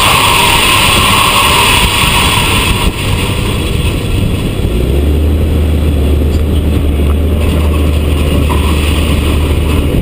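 Kinze 1050 grain cart unloading shelled corn through its auger into a semi trailer: a steady rushing noise of running machinery and pouring grain. A low steady hum joins it about five seconds in.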